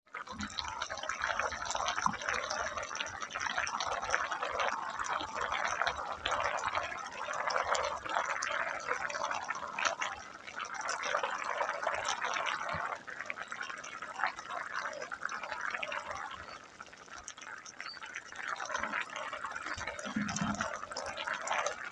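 Catfish stew simmering in a wok, the broth bubbling with a steady crackle of small pops.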